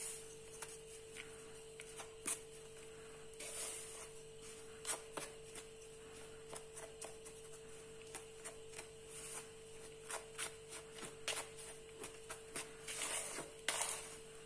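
Wooden spoon stirring dry chickpea flour, spices and fresh coriander in a metal bowl: faint, irregular scraping and small taps, with a few louder swishes near the end. A faint steady hum runs underneath.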